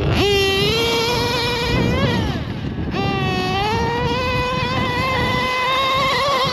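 Samurai RM .21 nitro engine in a Losi 8ight-T truggy revving hard at full throttle: a high-pitched whine that climbs sharply and holds. It eases off briefly about two seconds in, then climbs again and holds steady.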